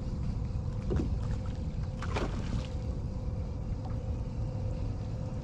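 Wind rumbling on the microphone aboard a small fishing boat, with a faint steady hum underneath.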